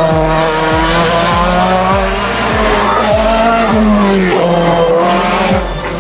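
Backing music with a steady beat, about one beat every 0.6 s, mixed with the sound of a racing car's engine at speed on a hillclimb.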